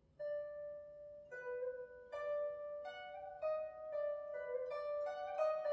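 Guzheng played solo: a single plucked note about a quarter second in, then more plucked notes coming faster and faster, each left ringing so that they overlap.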